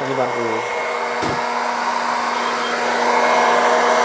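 Hot-air oil-free snack roaster (popcorn-maker type) running, its fan blowing steadily with a constant motor hum while it roasts a batch of peanuts. A single sharp click about a second in.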